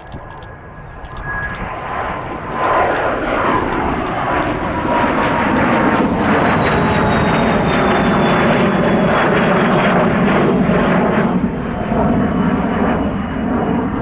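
Twin Pratt & Whitney PW545B turbofans of a Cessna Citation 560XLS climbing out after takeoff: a loud jet rumble that swells about two seconds in, with a high whine that slowly falls in pitch as the jet passes and draws away.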